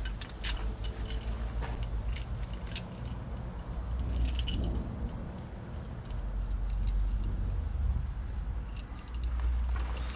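Loose metal parts of a threaded-rod bush puller clinking and jangling as they are handled, with scattered light taps and a brief metallic ring about four seconds in, over a low rumble.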